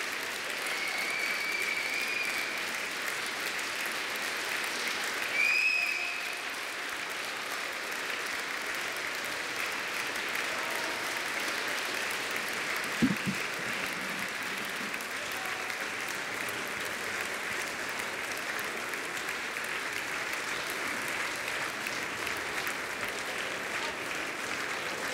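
Audience applauding steadily, with two shrill whistles in the first six seconds, the second louder, and one short low thud about halfway through.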